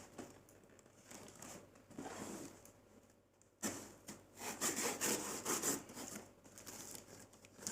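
A knife sawing through a cardboard box, in irregular back-and-forth scraping strokes, with a short pause and then a sudden louder stretch of cutting about halfway through.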